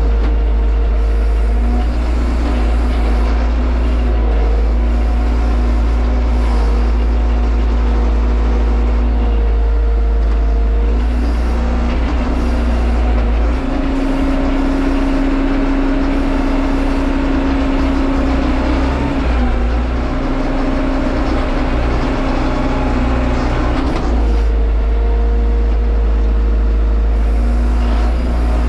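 Tractor engine running steadily while the tractor drives, heard from inside the cab: a loud, deep, continuous engine sound with a hum that fades in and out and shifts a little in pitch.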